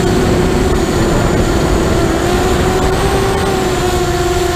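Brushless motors and propellers of a 180-size FPV racing quadcopter whining steadily in flight, recorded by its onboard camera. The whine wavers slightly in pitch with throttle, over a rushing noise.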